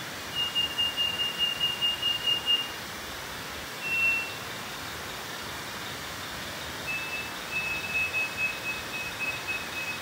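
Scaly-breasted wren (Microcerculus marginatus) singing: high, pure whistled notes in quick strings, one string at the start, a lone note about four seconds in, then another string pitched slightly lower near the end, over steady forest hiss.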